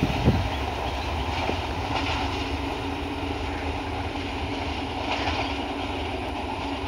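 Diesel multiple-unit passenger train running away along the line, its rumble and engine hum fading slowly, with a wheel knock just after the start.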